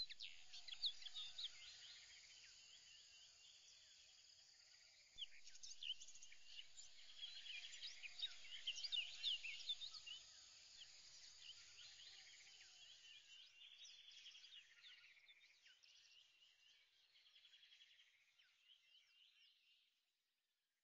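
Faint chorus of small bird chirps and short whistles over a light hiss, busiest in the middle and fading out near the end.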